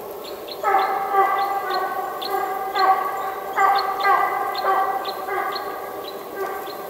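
Russian hound giving tongue on a chase: long, drawn-out baying notes, one after another with short breaks, the voice of a hound running game it has started.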